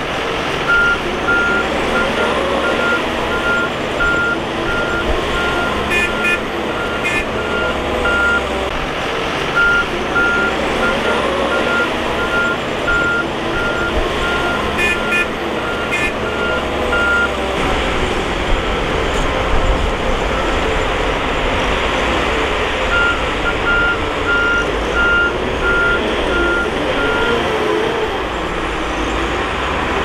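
Bulldozer diesel engine running hard with its reverse alarm beeping about twice a second in several long runs. A few sharp knocks sound near a quarter and halfway through.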